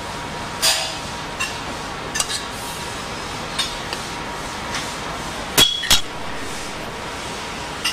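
A metal spoon taps and clicks lightly while caramelized apple cubes are spooned onto pastry pieces, over a steady kitchen hiss. About five and a half seconds in come two sharp, ringing metal clinks close together.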